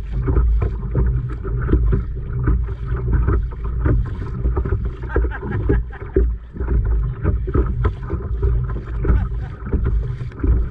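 Wind buffeting the microphone in a steady low rumble, with choppy water slapping irregularly against a kayak's hull.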